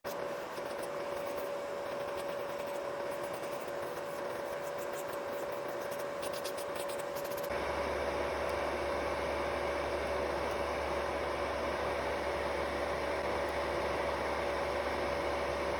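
Small electric nail-care machine running with a steady whine, with scratching against a nail over the first half. About halfway through the scratching stops and a low hum comes in.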